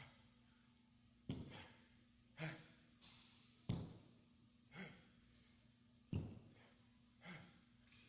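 A man breathing hard through a set of dumbbell reps: a forceful exhale about every two and a half seconds, each followed about a second later by a softer breath, over a faint steady hum.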